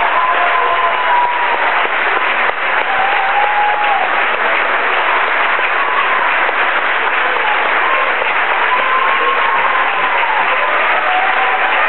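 A large crowd applauding steadily, with long wavering high tones running through the clapping.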